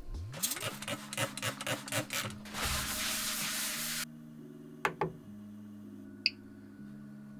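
Rubbing and scraping handling noise with many small clicks for about the first four seconds, stopping abruptly. Then a couple of sharp clicks and one short high beep from an Original Prusa 3D printer's control knob and panel as a print file is selected from the SD card.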